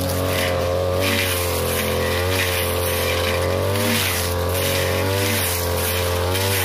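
A 42cc brush cutter engine running at high speed, its pitch sagging briefly about four times and then recovering as the metal blade bites into thick grass, with the swish of grass being cut.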